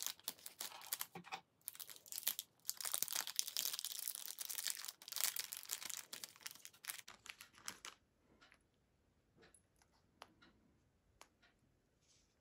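Plastic packaging of a new replacement watch band crinkling and tearing as it is pulled open, for about eight seconds. After that come only a few faint clicks.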